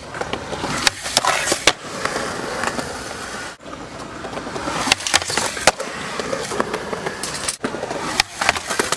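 Skateboard wheels rolling on concrete, with several sharp clacks and slaps of the deck and tail striking the ground as tricks are popped and landed.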